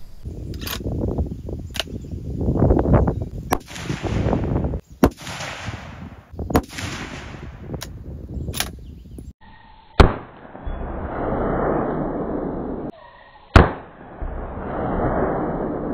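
6.5 Creedmoor bolt-action rifle firing: several sharp cracks with rushing noise between them. The two loudest shots come about three and a half seconds apart in the second half.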